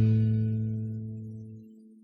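Final chord of a rock song on electric guitar and bass, held and dying away, the high notes fading first.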